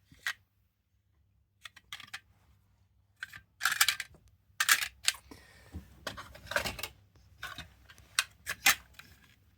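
Small hard objects clicking and rattling as they are handled: polished stones being picked out and moved about in a drawer, in irregular clusters with short gaps between them.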